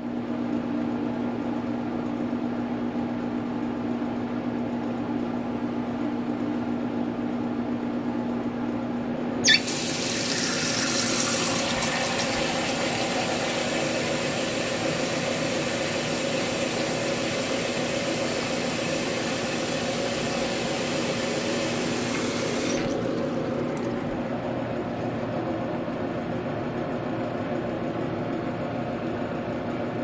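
A steady low hum, then about a third of the way in a sharp click and the rush of water running from a tap. About two-thirds of the way through the hiss loses its brightness and the water runs on with a duller sound.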